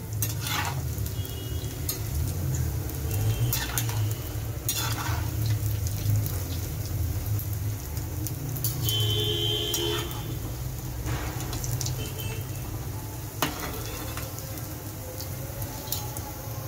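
Cauliflower pakoras deep-frying in hot oil in an iron kadai, a steady sizzle. A slotted steel spoon and a wire strainer clink and scrape against the pan as the fritters are turned and lifted out half-cooked on their first fry.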